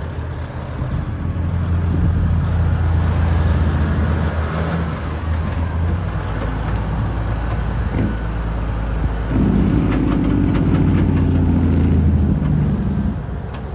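1999 Kenworth T800 truck's diesel engine running as the flatbed drives past, a steady low drone. It gets louder about nine and a half seconds in and eases off near the end.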